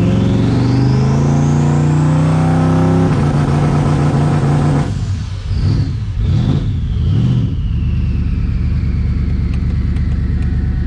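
Twin-turbo SVT Mustang Cobra's 4.6-litre V8 accelerating under load, heard from inside the cabin: the engine climbs with a rising turbo whistle and steps down at a gear change about three seconds in. Around five seconds the power drops away, and the engine stumbles and surges a few times before settling into a low, steady run as the turbo whine winds down. The car is running on an out-of-date tune file.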